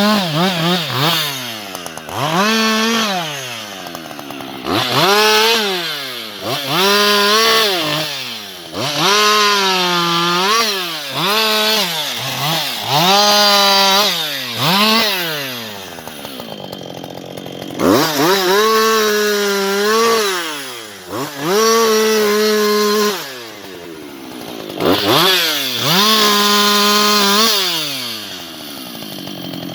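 Husqvarna 560XP two-stroke chainsaw throttled up to high revs and let back to idle over and over, about ten times, with a short idle pause around the middle.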